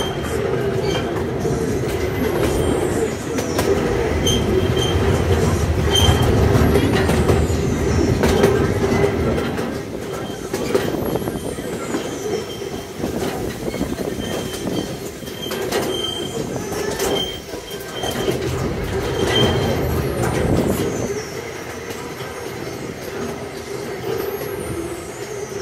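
Miniature park train running along its track, heard from on board: a continuous rumble and clatter of the cars on the rails with a steady wavering tone, a little louder at first and easing off about halfway through.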